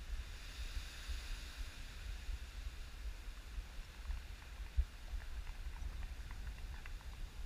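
Wind rumbling on the microphone, with a light hiss and a few faint short ticks, and one dull thump a little under five seconds in.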